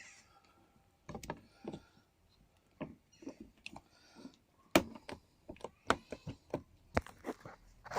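Scattered, irregular clicks and knocks of hand work on motorcycle parts and tools, with a few sharper knocks in the second half.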